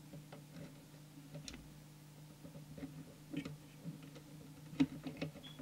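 Faint, irregular clicks and taps of a small trimming tool being fitted into and turning a preset potentiometer on a CB radio's circuit board, over a low steady hum.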